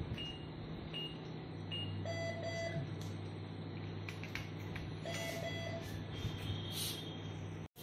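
Operating-theatre patient monitor beeping steadily, a short high pip about every 0.8 seconds, over a steady low hum. Twice, about two and five seconds in, a lower tone sounds for about half a second: the activation tone of the electrosurgical (diathermy) unit. Small clicks of surgical instruments are mixed in, and the sound cuts out just before the end.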